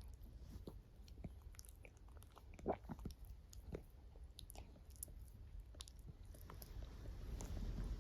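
Miniature dachshund asleep and faintly snoring, with small mouth clicks and smacks scattered through; a louder snoring breath swells near the end.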